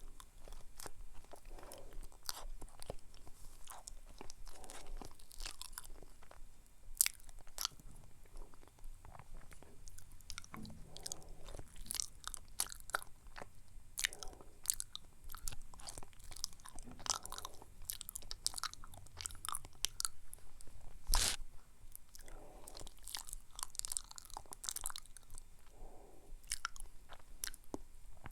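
Close-up eating sounds of a person chewing banana: soft, irregular chewing with wet mouth clicks, and one sharper click about three-quarters of the way through.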